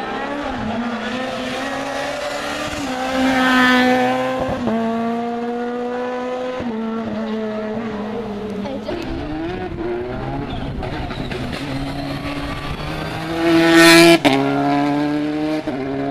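Rally cars at full speed on a special stage, engines revving hard with the pitch stepping at each gear change. It grows loudest twice, about three and a half seconds in and again near the end, as the cars pass close.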